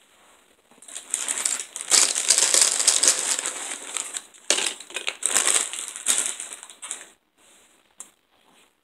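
Loud crinkling and crunching close to the microphone, lasting about six seconds, loudest about two seconds in and again around four and a half seconds.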